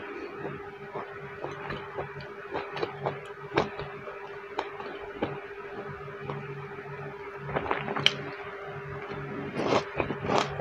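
Close-miked chewing of stir-fried green beans, carrots and tuna: a string of short crisp crunches and clicks, thickest about three-quarters of the way through and again at the end, over a steady low hum.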